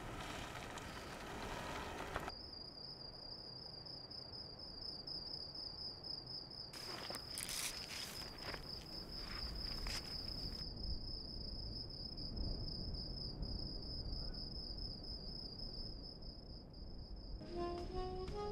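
Cricket chirring in one steady high trill, which begins about two seconds in. A stretch of rustling noise runs under it midway. Music with a plucked-sounding melody comes in near the end.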